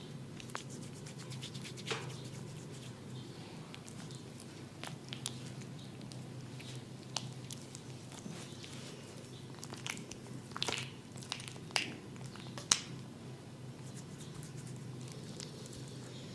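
Close-miked hands-on head massage: scattered soft taps, pats and small clicks of hands working on skin and hair, bunching up in the second half, with the sharpest click near the end, over a steady low hum.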